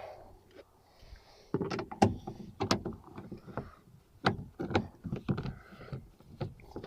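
Irregular clicks and knocks from a Ford XF Falcon ute's door handle and latch being fitted into the door and worked. The clacks come thicker from about one and a half seconds in.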